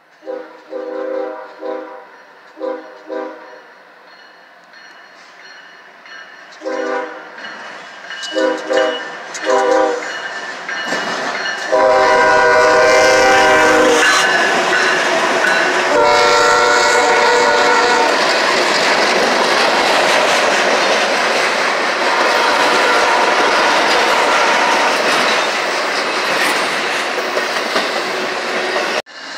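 Norfolk Southern GE ES40DC freight locomotive sounding its horn in a series of chord-like blasts, the last two long, as it approaches and passes. Then comes the steady loud rumble and wheel clatter of the intermodal train rolling past close by, which cuts off abruptly near the end.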